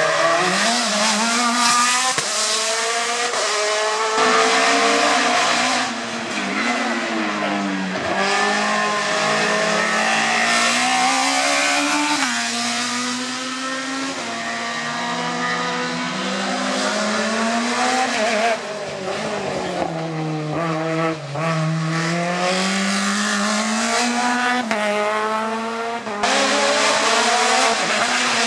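Hill-climb race car engines at high revs, the pitch climbing and dropping again and again through the gear changes, with some tyre squeal.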